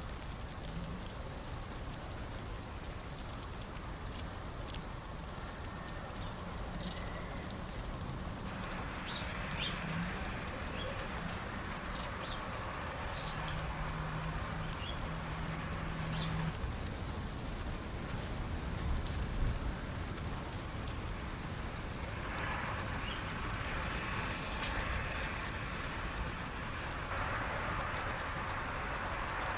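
Small birds chirping around a feeder: many short, high chirps scattered throughout, over a steady background hiss.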